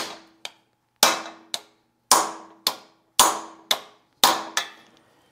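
Hammer rapping a socket held against the steel camshaft core plug in a Triumph TR4 engine block: five hard blows about a second apart, each followed by a lighter rebound tap and a short metallic ring. The blows are meant to dish the plug's centre so its edges flare and seal, but they are not caving it in, which the mechanic puts down to the socket being hollow.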